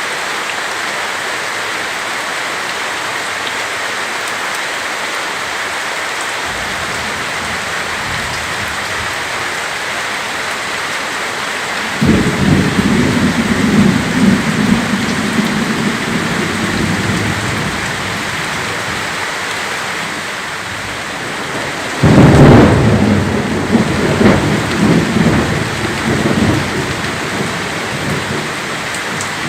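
Heavy rain falling steadily during a severe thunderstorm, with two peals of thunder. The first breaks about twelve seconds in and rumbles for several seconds; the second, louder one starts suddenly about twenty-two seconds in and rolls on for a few seconds before fading.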